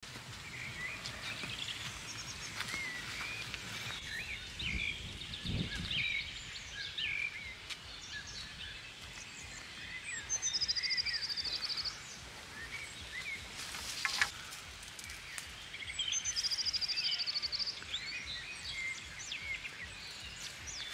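Small birds chirping and singing, many short calls throughout, with a fast high trill about halfway through and again later. A low thump comes about five seconds in.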